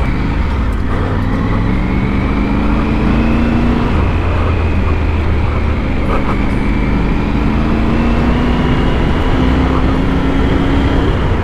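Triumph adventure motorcycle engine pulling hard on a gravel track. Its note climbs and drops back twice, about four and nine seconds in, as the gears change up, under heavy wind rumble on the microphone.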